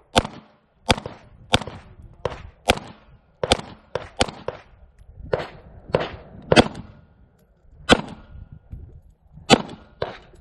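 Pistol shots fired in a competition string: about a dozen sharp cracks, mostly in quick pairs about half a second apart, with pauses of about a second between groups. Each shot rings briefly before the next one.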